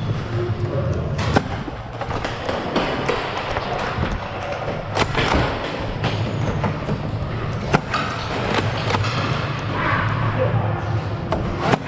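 Irregular thumps and clacks of a Nerf foam-ball game: Rival blasters firing and foam balls striking cover, with indistinct voices underneath.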